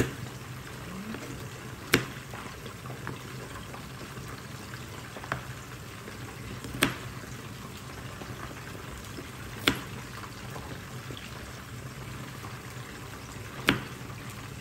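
Knife chopping ginger on a cutting board: about six sharp knocks, a few seconds apart, over the steady sizzle of chicken frying half-way in oil in a covered wok.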